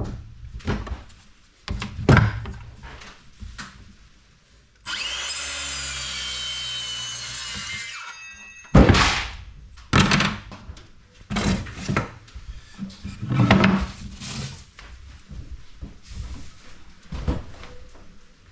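Cordless circular saw crosscutting a thin cedar tongue-and-groove V-joint board, running steadily for about three seconds and then winding down in pitch. Before and after the cut, boards knock and clatter on the wooden workbench as they are handled.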